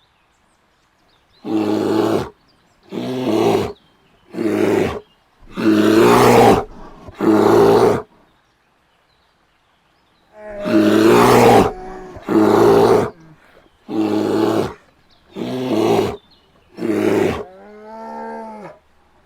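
Bear roaring: ten loud, rough roars of about a second each, in two runs of five with a pause of about two seconds between them. Near the end a softer call with a rising-and-falling pitch follows.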